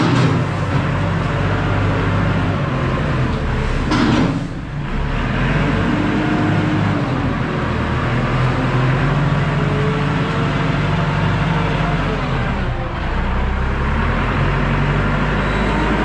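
Fermec backhoe loader's diesel engine running under load, its pitch rising and falling as the bucket pushes corn stalk bedding, with a short clatter about four seconds in.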